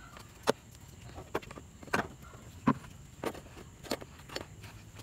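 Hard plastic and metal clicks and knocks from handling an H4 LED headlight bulb and its wiring plug over plastic engine-bay covers. About seven irregular taps, the loudest about half a second in and a little past the middle.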